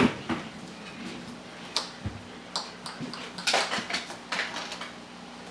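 Dishes and serving utensils clinking and clattering in a scatter of short knocks, a small cluster of them about halfway through, over a faint steady hum.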